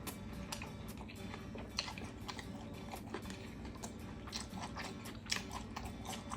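A person chewing and biting mouthfuls of grilled pork waterfall salad (moo yang nam tok), with irregular wet clicks and crunches.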